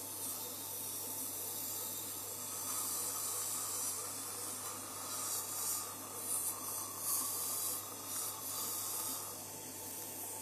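Steady rushing hiss of air with a low hum underneath, dying away right at the end.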